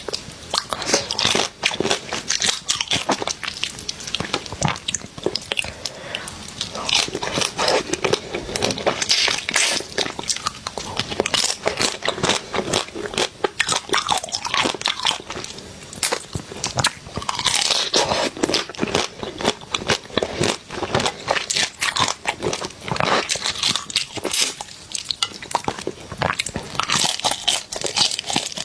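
Close-up eating of spicy crab: continuous crunching and chewing, with many sharp, irregular cracks.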